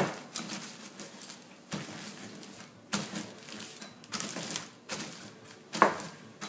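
Double Stuf Oreo cookies in a plastic bag being crushed under a marble rolling pin on a granite countertop: sharp cracking crunches and knocks at irregular intervals, about one a second.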